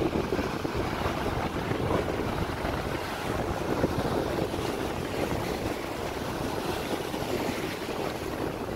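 Wind buffeting the microphone over the wash of breaking surf, a steady rushing noise with no distinct knocks or clicks.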